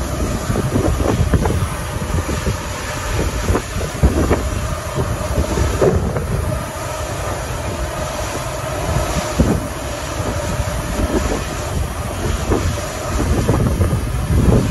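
Boeing C-17 Globemaster III's four turbofan engines running on the ground: a steady jet rumble with a steady whine over it, with wind buffeting the microphone.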